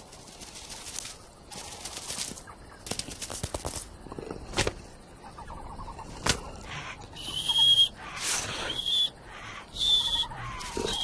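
Cartoon sound effects: soft, even breaths repeating about every second and a half, two sharp clicks, then several short high chirps in the second half.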